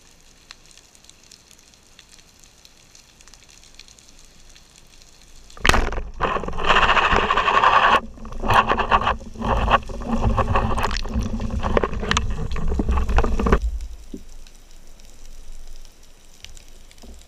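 Underwater, a speargun fires with a sudden sharp crack about five and a half seconds in, after faint crackling water background. About eight seconds of loud churning, rushing water noise with knocks follow, then it dies away.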